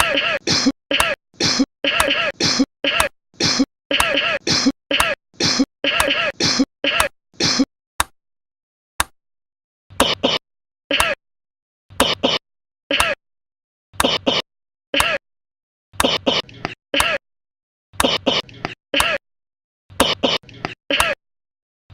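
A string of short human coughs, one after another with abrupt silent gaps between them; rapid and dense for the first seven seconds or so, then sparser, in pairs and small clusters.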